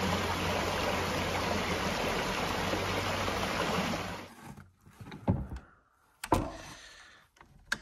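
Steady rush of a small stream running over rocks, cutting off suddenly about four seconds in. Then a few short knocks as a Mosin-Nagant 91/30 rifle is handled on a bench.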